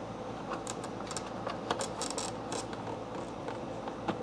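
Small clicks and rattles of a plastic fog-light cover on a Honda Gold Wing being handled and worked free of its snap tabs, over a steady low background hum.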